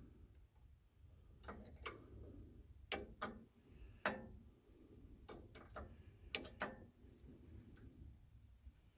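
Adjustable wrench clinking against the throttle-cable clamp bolt and bracket on the carburetor as it is worked loose: a dozen or so faint metal clicks and knocks, irregularly spaced.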